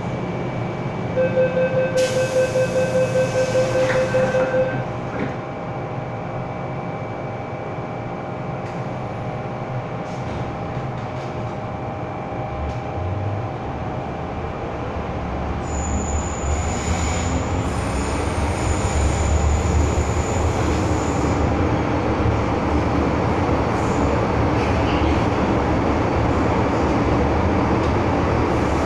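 MTR M-Train door-closing warning beeps, a fast series of short tones lasting about three and a half seconds near the start. The train then runs on with a steady hum and a low rumble that grows louder, and brief high squeals come and go partway through.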